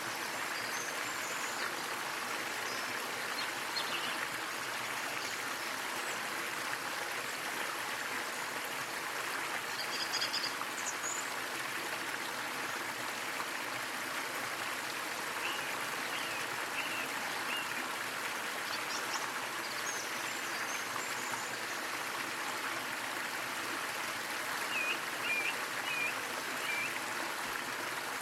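Small waterfall splashing with a steady, even rush of water. Faint short bird chirps come and go over it, in a few brief runs.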